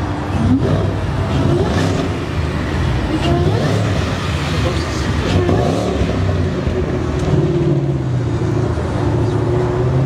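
Engine of a white Mustang-based sports car revving and accelerating as it drives past close by, its pitch rising and falling several times, then settling to a steadier drone near the end.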